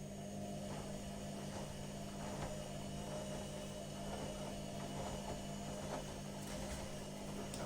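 Washing machine running with a steady motor hum, faint irregular clicks and knocks over it.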